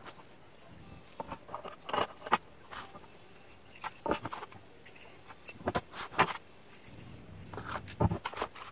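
Stainless steel eye bolts, washers and nuts clinking and clicking against each other as nuts are threaded onto the bolts by hand: scattered, irregular metallic clinks.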